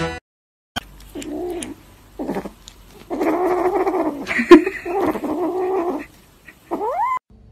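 Kitten mewing in a series of about five drawn-out calls, the longest over a second, ending with a short rising meow. A single sharp click comes about halfway through.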